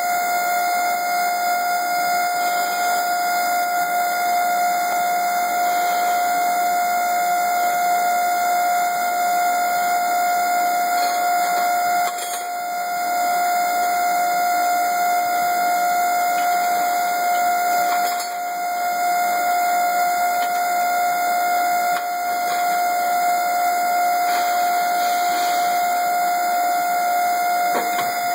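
Bending machine giving off one continuous, steady high-pitched tone, like a buzzer, with brief slight dips about halfway through and again a little later.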